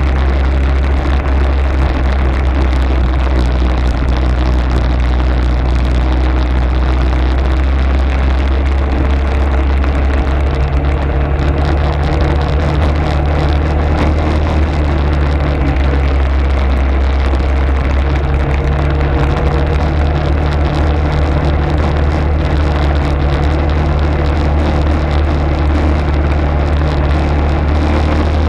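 Arctic Cat ATV engine running steadily under way, a deep low hum with the engine note shifting slightly a couple of times as the throttle changes.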